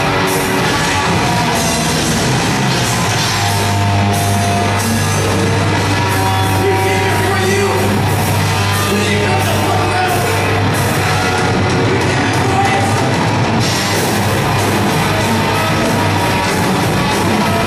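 A metal band playing live and loud: electric guitar over a drum kit.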